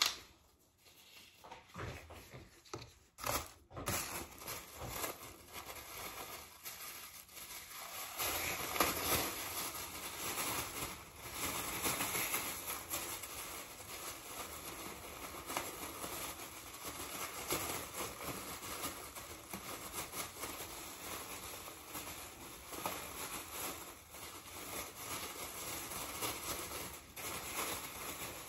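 Thin plastic crinkling and rustling as it is handled. There are a few sharp clicks in the first seconds, then a dense, continuous crackly rustle from about eight seconds in.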